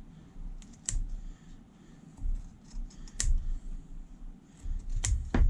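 Scissors snipping through cloth filter material, a few sharp irregular clicks of the blades closing, as excess cloth is trimmed from around a vacuum filter.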